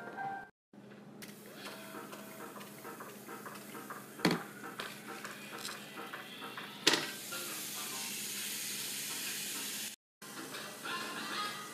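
Raw chicken breast sizzling on the hot ridged grill plate of a Cuisinart Griddler Deluxe contact grill. A sharp knock about seven seconds in is followed by a louder, steady sizzle, over faint background music.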